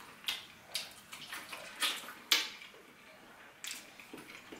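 Hands tearing apart a piece of roast chicken: about five short tearing sounds, spaced irregularly.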